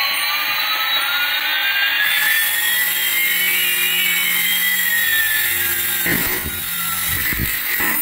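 HX708 toy RC helicopter's small electric rotor motors whining, the pitch gliding up and down as the throttle changes while it hovers. A few low thumps come near the end.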